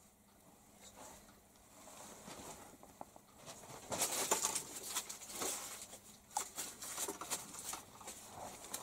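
Faint rustling and scuffing with scattered clicks and crackles, starting about three and a half seconds in: clothing and camera-handling noise as the camera is moved.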